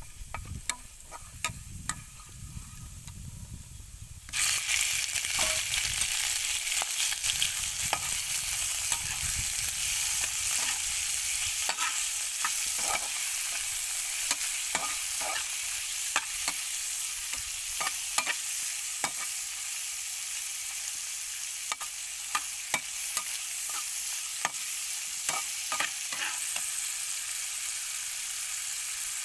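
Chopped garlic frying in oil in a frying pan, a metal spatula clicking and scraping on the pan. About four seconds in, a much louder steady sizzle starts as shrimp go into the hot oil, and it carries on while the shrimp are stirred, with repeated spatula scrapes and clicks.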